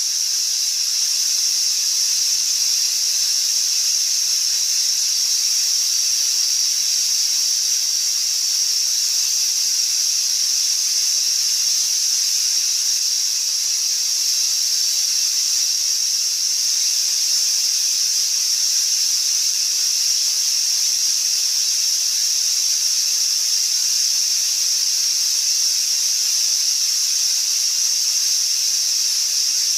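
Steady static noise: an even, high-pitched hiss at a constant level, with no clicks or tones in it.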